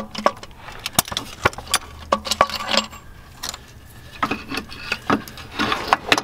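Scattered metallic clicks and clinks, irregular and some in quick clusters near the end, from a socket extension spinning the rear starter bolt out by hand and the loosened starter being worked free of the engine.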